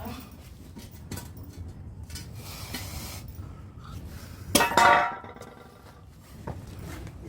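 Parts of a top-loading washing machine clinking and clattering as it is dismantled by hand, with one louder ringing clank about four and a half seconds in.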